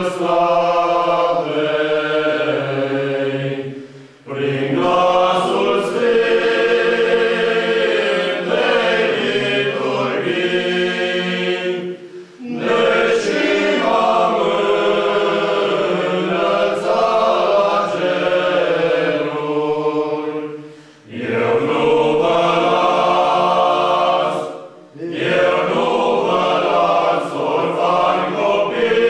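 Male choir singing a cappella, in long sustained phrases with short breaks between them about four, twelve, twenty-one and twenty-five seconds in.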